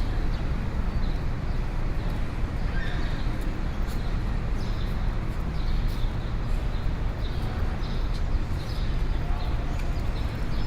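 Busy city street ambience: a steady low traffic rumble under a general hubbub, with light, regularly repeated clicks.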